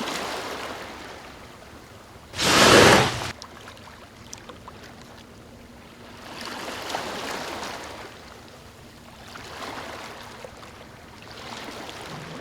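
A whale's blow: one loud whoosh, about a second long, of breath and spray forced out of the blowhole, a little over two seconds in. After it, sea water washes and swells in two slow surges.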